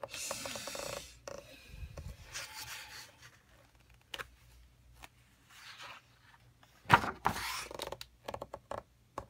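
Pages of a thick-paged coloring book being turned by hand: several papery swishes and rustles, the loudest about seven seconds in, with a few light clicks near the end.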